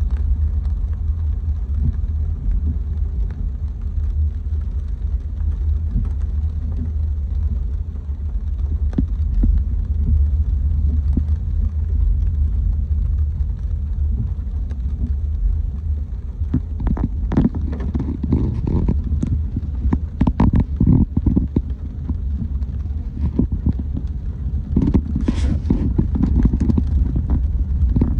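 Low, steady rumble of a car driving. About two-thirds of the way through comes a cluster of irregular knocks and thuds, followed by a brief sharper sound.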